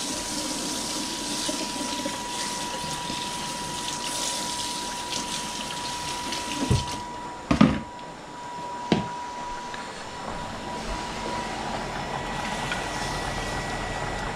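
Kitchen tap running onto a plastic colander in a stainless steel sink, a steady splashing hiss that stops about seven seconds in. Three sharp knocks and clatters follow as things are set down.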